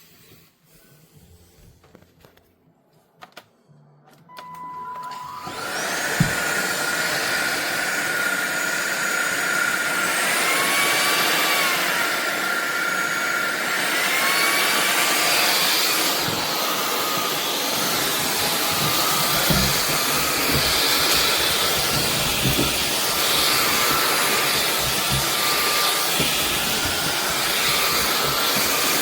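A few faint clicks, then a SunSare X7A cordless stick vacuum's motor starts about four seconds in and runs steadily with a high whine. The whine glides up and down in pitch a few times near the middle, and there are some low knocks in the later part.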